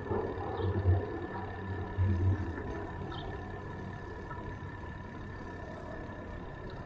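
Wind buffeting the microphone of a moving bicycle, in low gusts about a second in and again around two seconds. Under it run a steady faint whine and a few light ticks.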